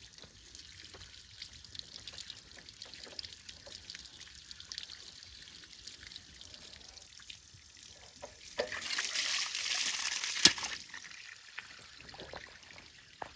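Water trickling, with a louder spell of pouring about two-thirds of the way through and one sharp click near its end.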